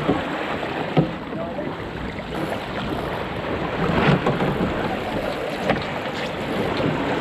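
Wind buffeting the microphone over water rushing and splashing along the hull of a National 18 sailing dinghy under way at speed. There is a louder surge of spray about four seconds in, and a few sharp knocks.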